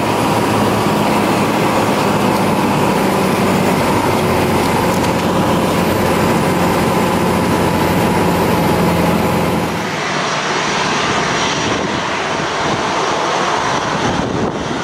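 Single-engine propeller plane's engine and propeller running with a steady drone, heard from inside the cockpit as it comes in over the runway. About ten seconds in, the sound changes abruptly to a duller engine noise of a jet airliner taxiing.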